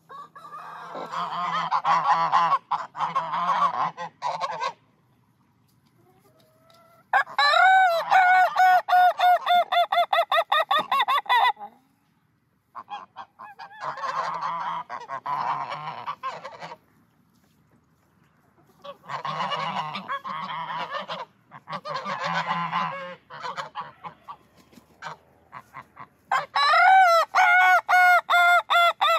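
Ayam Ketawa (laughing rooster) crowing in its typical laughing style: long runs of rapid, stuttering notes, each run lasting several seconds, five runs in all with short pauses between them.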